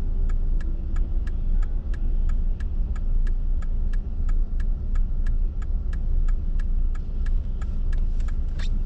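A car's turn-signal indicator ticking steadily, about three clicks a second, over the low rumble of engine and road noise inside the car's cabin.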